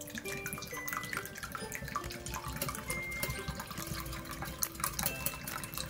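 Milk pouring in a steady stream from a glass measuring cup into a glass bowl of beaten egg, a continuous splashing trickle. Light background music plays under it.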